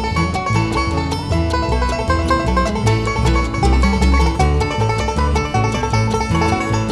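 Background bluegrass music with a fast-picked banjo over a steady bass beat.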